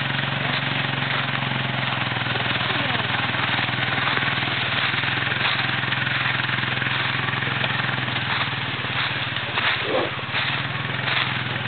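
ATV (four-wheeler) engine running steadily at low speed while towing a deer carcass over dry leaves, the engine tone weakening somewhat after about eight seconds as the machine pulls away.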